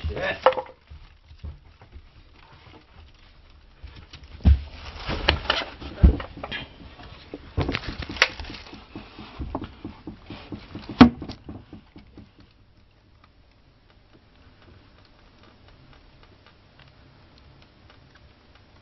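Scattered knocks, thumps and clatters in a small room for about twelve seconds. They stop, leaving only faint ticking and rustling.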